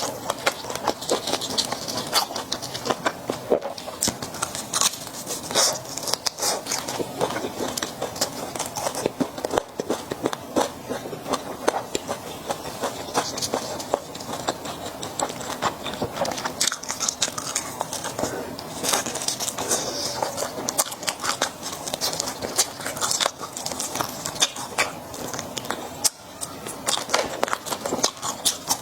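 Close-miked chewing and biting of Peking roast duck, a dense, continuous run of small crackles and wet mouth sounds.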